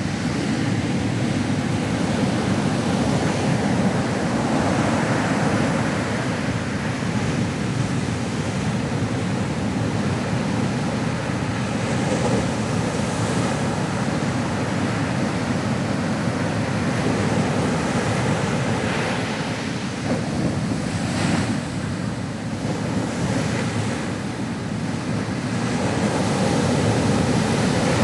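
Ocean waves breaking and washing on the shore in a steady surf, swelling and easing, with wind noise on the microphone.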